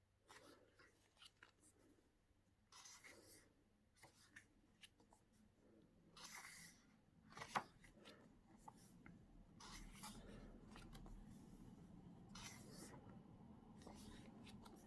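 Near silence with faint paper rustles as the glossy pages of a photo book are handled and turned, and one sharper tap about halfway through.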